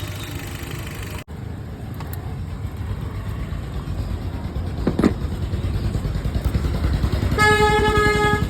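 A motor vehicle engine running with a steady low throb. Near the end a steady pitched tone sounds for about a second over it.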